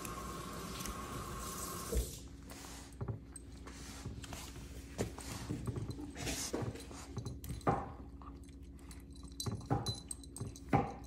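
Puppies play-biting and mouthing each other: scattered sharp clicks and taps of teeth, with a collar tag jingling. A steady hum stops abruptly about two seconds in.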